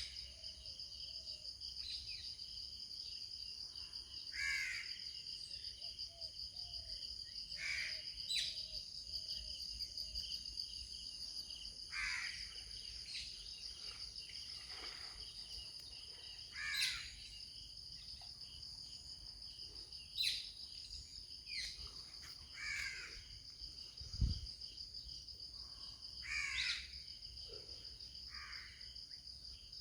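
Crows cawing, single harsh caws every few seconds, over a steady high-pitched insect drone. A single low thump about two-thirds of the way through.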